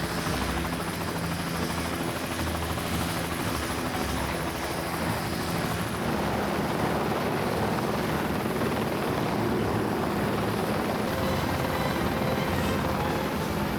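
Helicopter flying close, a steady noise of rotor and engine with a few held low tones that shift slightly about six seconds in.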